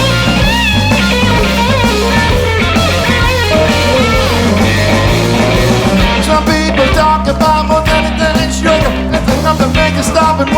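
Electric blues-rock band playing an instrumental break: an electric guitar lead with bent, wavering notes over steady bass and drums, with the drum hits coming through more clearly in the second half.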